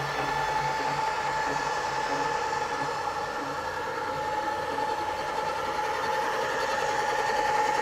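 Rieco-Titan electric camper jacks lowering a truck camper onto a pickup bed, their motors running with a steady whine.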